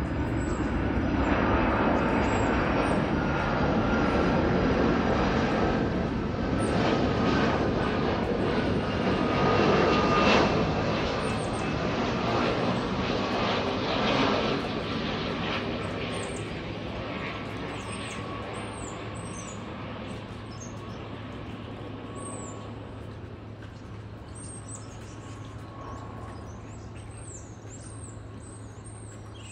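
Twin-engine FedEx cargo jet passing low overhead on approach to land, landing gear down. Its engine noise builds to its loudest about ten seconds in, stays loud a few more seconds, then slowly fades away. Birds chirp as the jet fades.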